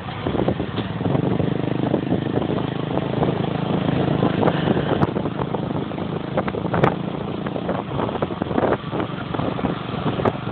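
A vehicle engine running steadily while on the move, with road noise and occasional knocks and bumps.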